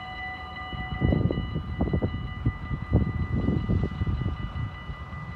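Dutch railway level-crossing warning bell ringing steadily as a set of steady high tones. About a second in, an uneven low rumble with knocks comes in under it and becomes the loudest sound.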